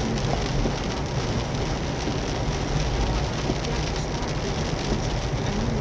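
Heavy rain drumming on a car's roof and windshield, heard from inside the cabin as a steady hiss. A steady low rumble from the moving car runs underneath.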